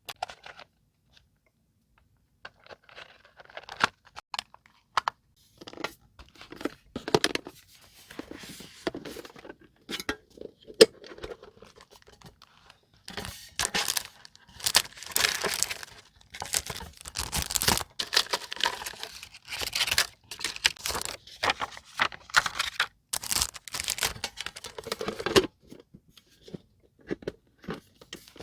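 Paper being handled and torn by hand: a few scattered rustles and light taps, then a dense stretch of tearing and crinkling paper from about halfway through, which stops abruptly near the end and gives way to a few soft taps.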